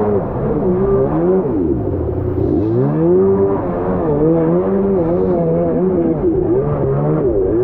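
Jet ski engine running at speed, its pitch repeatedly falling and rising as the revs change, with a deep dip and climb back about one and a half to two and a half seconds in and another near the end.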